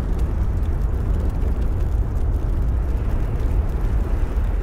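A steady, deep rumbling noise with no clear tone, strongest in the bass.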